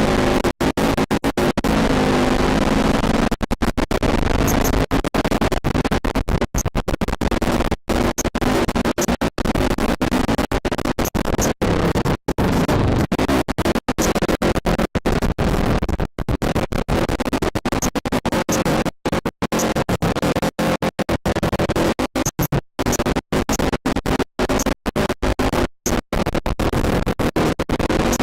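Electronic music track, loud and continuous, chopped by many brief, sudden cutouts that give it a stuttering, scratch-like feel.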